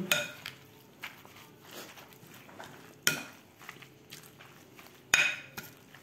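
Large spoon stirring and scraping a moist grated-coconut and spice mixture in a bowl. Two sharp clinks of the spoon against the bowl come about three and five seconds in, the second louder and ringing briefly.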